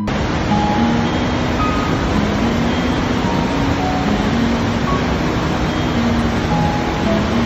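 The steady, loud rush of a large waterfall, the Rhine Falls, in full flow.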